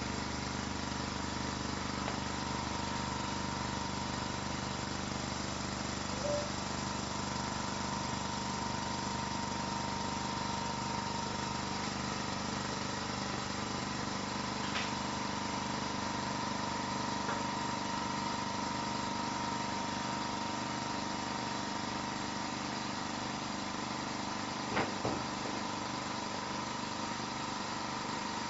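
Vacuum pump of a dental porcelain furnace running with a steady hum, pulling the firing chamber down to vacuum during a vacuum test. A couple of light clicks near the end.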